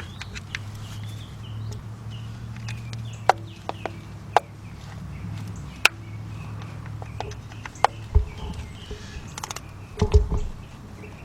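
Scattered sharp metallic clicks and knocks from a socket and ratchet working at a hard-to-reach distributor-cap screw, with a couple of heavier thumps near the end. Faint bird chirps sound over a steady low hum.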